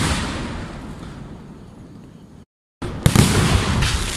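Aerial fireworks shells bursting overhead: a bang fades into crackling and rumble, the sound cuts out briefly, then a fresh loud burst about three seconds in and another at the end.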